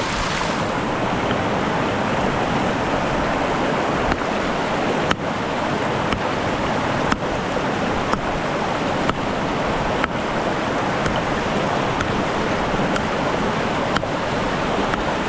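Steady rush of river water, with light sharp ticks about once a second.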